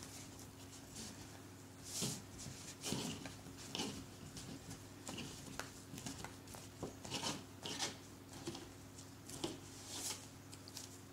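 Irregular rustling and crinkling as a self-adhesive vinyl repair patch and its paper backing are pressed and worked by hand around a chair armrest, over a faint steady hum.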